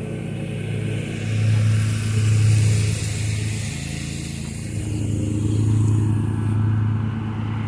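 Zero-turn riding mower engine running steadily under load while cutting grass, swelling louder twice as it draws near.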